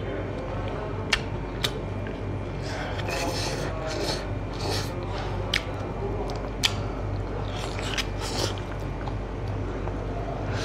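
Close-miked eating sounds from a man eating smoked pork and rice by hand: chewing and crunching with wet smacks and a scatter of sharp clicks, over a steady low hum.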